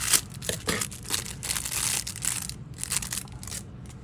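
Packaging for a fishing lure being crinkled and rustled by hand, in a run of irregular crackly bursts that die down about three and a half seconds in.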